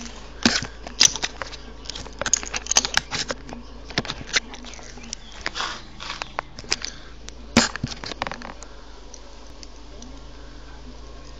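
Handling noise of the recording phone: rubbing over the microphone and a run of sharp knocks as it is moved and set down. The loudest knocks come about a second in and again near eight seconds, after which only a steady low hum remains.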